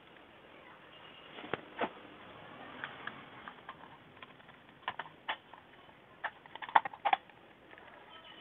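Small plastic clicks and taps of a hair dryer's housing parts being handled and fitted back together. Two clicks come early, then a quicker run of sharp clicks a few seconds later.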